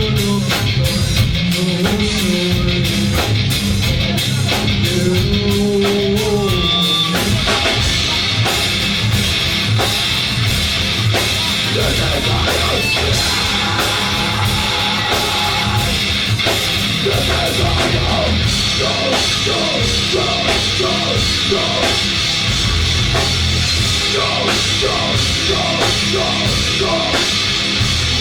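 Loud live rock band playing: drum kit with dense cymbal hits, electric guitar and bass, and some singing.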